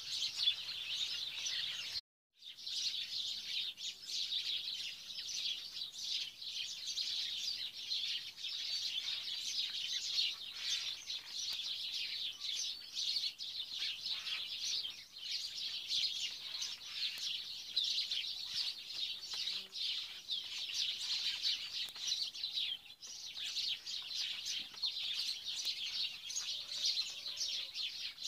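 Many small birds chirping in a dense, continuous chorus, cutting out completely for a moment about two seconds in.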